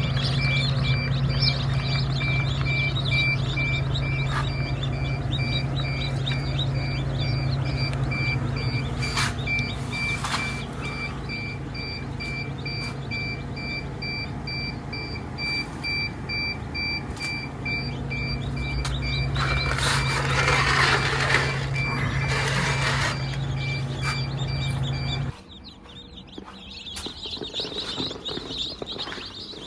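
A steady low machine hum with an evenly repeated high electronic beep over it, with a burst of noise about twenty seconds in; hum and beeping stop together near the end, leaving faint background sound.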